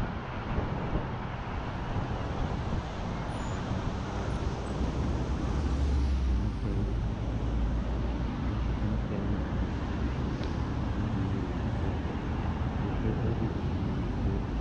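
City road traffic: motor vehicles idling and driving past in a steady low rumble, with a louder low engine note about six to eight seconds in.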